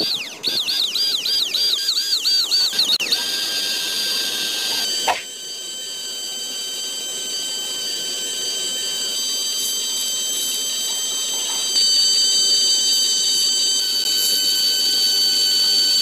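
Small electric motor of a homemade toy tractor whining at a high pitch as it turns a toy grinder's flywheel through a rubber-band belt. The pitch wavers rapidly for the first few seconds, then holds steady, with a click about five seconds in and the whine getting louder near twelve seconds.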